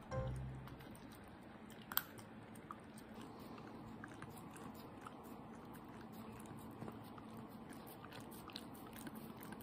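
A black Shiba Inu puppy chewing dry kibble from a hand, with faint crunching and small ticks and one sharper click about two seconds in.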